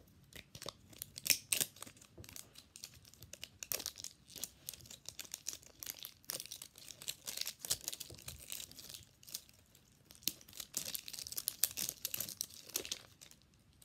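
The paper wrapping on a plastic L.O.L. Surprise toy ball being peeled and torn off by hand, crinkling and tearing unevenly, busiest in the second half.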